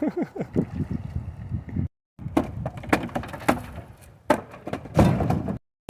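Old wooden dock boards creaking, knocking and cracking as they are broken apart during demolition: a run of short falling creaks, then a series of sharp knocks and cracks, with two brief cuts to silence.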